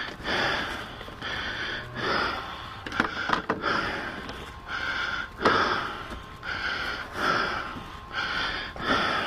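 A man breathing heavily close to the microphone: quick, rasping breaths, roughly one every second or less, with a few knocks as he handles gear.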